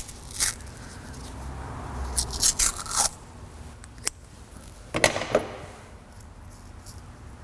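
Electrical tape being pulled off the roll and wrapped around a crimped wire splice: several short tearing pulls, the longest a run about two to three seconds in and another about five seconds in.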